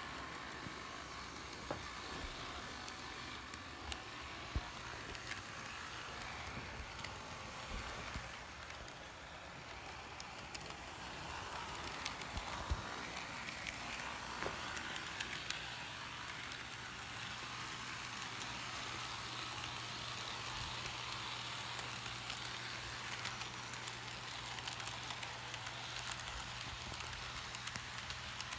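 Athearn Genesis HO-scale ES40DC model locomotive running along sectional track: a steady crackly rolling noise from its motor and wheels, with scattered clicks. A low steady hum joins about halfway through.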